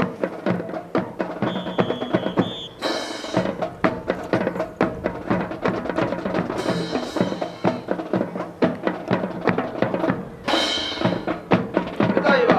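Music with drums and percussion, with many sharp knocks beating throughout.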